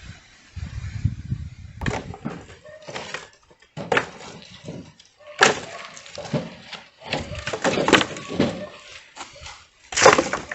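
Branches and sticks knocking, cracking and snapping as they are handled and thrown onto a bonfire pile: an irregular run of sharp knocks, the loudest about five and a half seconds in and near the end.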